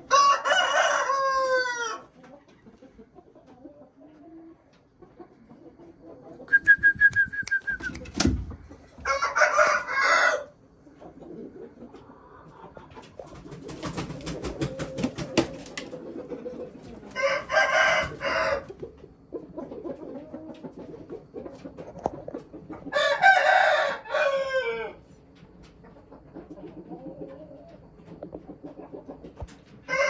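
A young Thai game rooster crowing four times, each crow about two seconds long, with pauses of several seconds between them. A loud thump comes about a quarter of the way through, and a stretch of clicking and rustling falls in the middle.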